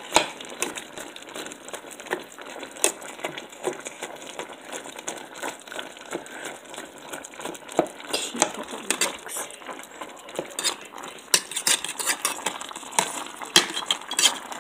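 Spatula scraping and knocking against a stainless steel pot while breaking up raw ground beef and onion: irregular clicks and scrapes that grow busier about halfway through.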